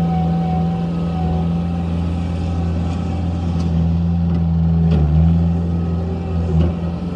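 Scattrack 1350 skid steer loader's engine running steadily, with a few short knocks or clanks in the middle and near the end.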